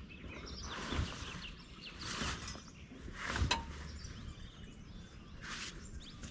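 Four short rustling, scraping bursts, the loudest about three and a half seconds in with a dull thud, as the canvas and frame of a Mahindra Thar's folding soft top are handled, over birds chirping.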